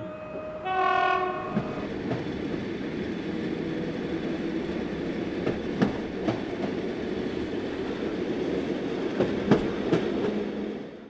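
A train horn sounds once for about a second shortly after the start, then a moving train runs on with a steady rumble and scattered clicks of the wheels over rail joints.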